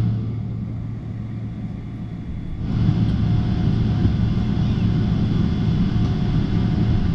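Airliner cabin noise during taxiing: a steady low engine hum with a rushing hiss, which suddenly grows louder and fuller about two and a half seconds in, then holds steady.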